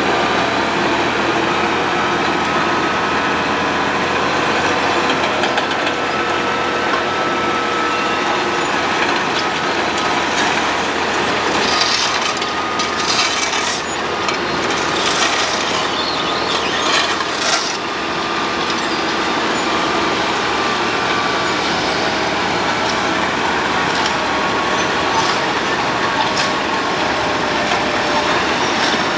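Road planer (cold milling machine) running, a loud steady heavy-machine noise with faint whining tones. A few short bursts of hiss come and go around the middle.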